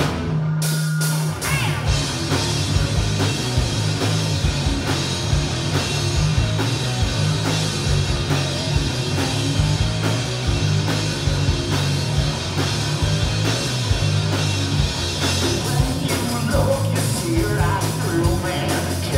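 Live rock band playing loud, with distorted electric guitars, bass and a drum kit keeping a steady beat. Singing comes in near the end.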